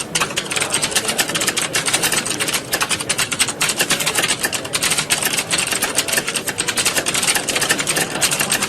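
Many computer keyboards being typed on at once, a dense, unbroken clatter of key clicks like a room full of candidates in a typing exam.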